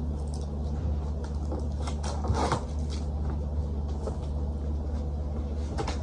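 Cardboard box of a box fan being handled and opened: a few scrapes and knocks of cardboard, the loudest about two and a half seconds in, over a steady low hum.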